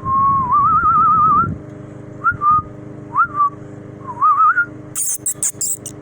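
A person whistling a warbling, trilled phrase followed by short rising whistles, over a steady low engine-like hum. A quick run of sharp clicks comes near the end.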